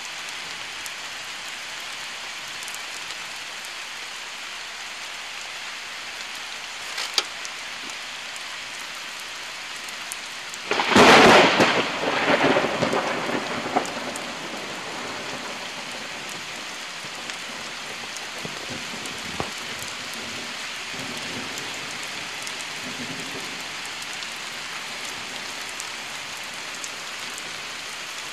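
Steady rain falling, with a loud, sudden thunderclap about eleven seconds in that rumbles on for about three seconds. A fainter rumble of thunder follows later.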